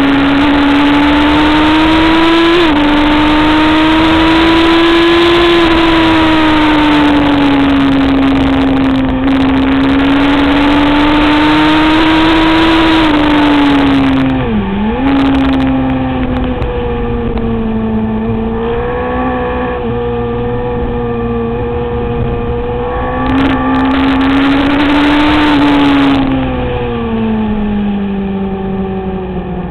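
Sport-bike engine running hard on a race track, heard from on board over a heavy rush of noise. The engine holds high revs, dips sharply and picks up again about halfway through, runs lower for a few seconds, climbs again, then falls away near the end.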